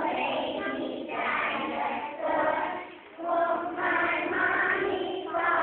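A class of transitional-kindergarten children singing a song together in chorus, with a brief pause between lines about three seconds in.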